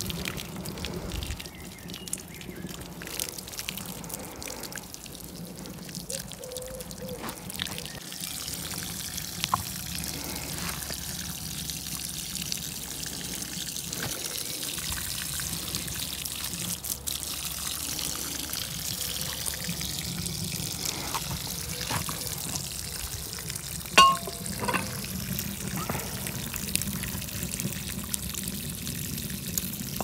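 Water running from a garden hose fed through a wood-fired rocket-stove water heater, trickling and splashing onto the ground. A single sharp click sounds about three-quarters of the way through.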